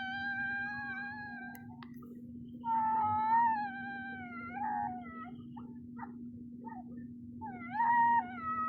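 Long, drawn-out wailing yowls in three main cries, each lasting one to two seconds, with a few short yelps between them, over a steady low hum.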